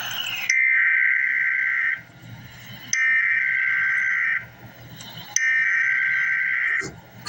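Emergency Alert System SAME header: three bursts of two-tone digital data, each about a second and a half long with short gaps between. This is the coded burst that opens an EAS alert, here carrying a tornado watch.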